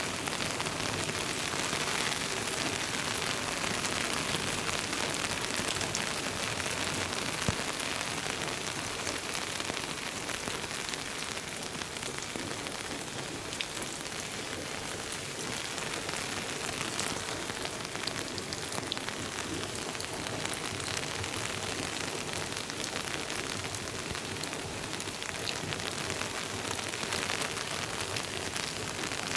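Steady rain falling on leaves and soil: an even hiss with many small drop ticks through it, and one sharper tap about seven and a half seconds in.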